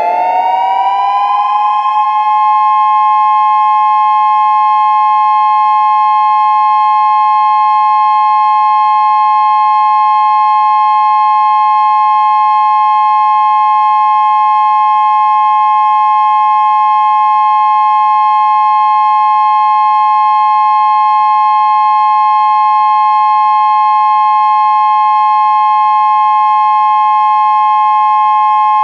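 Synthesized Federal Signal SiraTone electronic siren sounding its steady major-third dual tone: two pitches at 850 Hz and 1062.5 Hz held together continuously. The tones finish rising up to pitch about two seconds in, then stay level.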